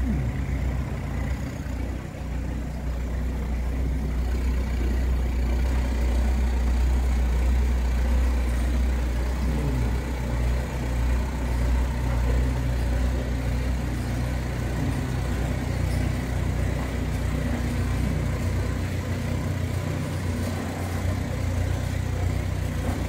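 Narrowboat engine running steadily at cruising speed, a continuous low drone.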